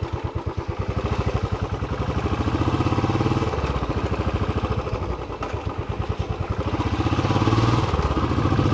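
Royal Enfield Classic 350 BS6's single-cylinder engine running at low road speed, its exhaust thumping in quick even pulses. The engine note swells a little about three seconds in and again near the end as the throttle is opened.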